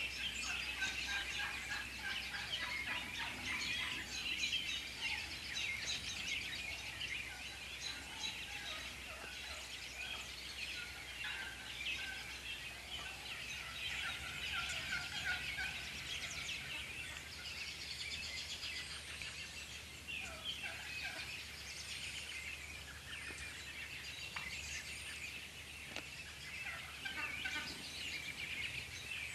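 A flock of wild turkeys calling almost without a break, a crowd of short overlapping calls with toms gobbling.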